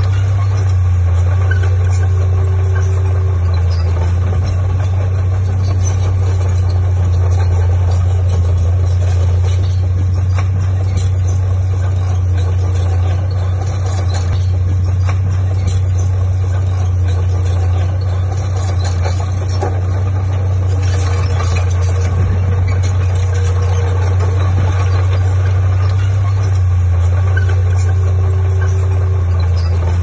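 Diesel engine of heavy earthmoving equipment running steadily, a low even drone with mechanical clatter above it.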